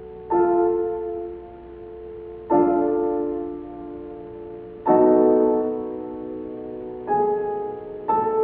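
Slow closing music of piano chords, a new chord struck about every two seconds and left to ring and fade.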